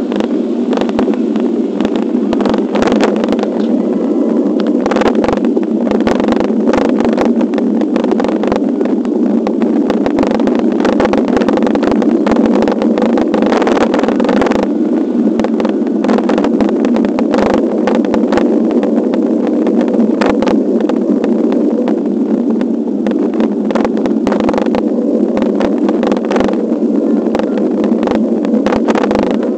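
Wind rush and road vibration picked up by a camera riding on a moving bicycle: a steady, loud rumble with frequent small clicks and rattles from bumps in the road.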